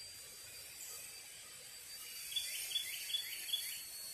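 A bird calls four quick downward-sliding chirps a little over two seconds in, over faint steady outdoor hiss and a thin, steady high whine.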